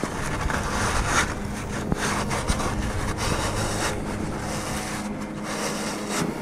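Paper towel wiping and scrubbing a greasy engine oil pan coated in degreaser: a run of irregular rubbing strokes. A steady low hum sits underneath.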